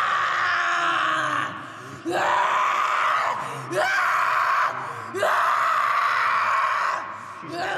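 A woman screaming over and over: four long, raw shrieks of one to two seconds each, with short breaks between them.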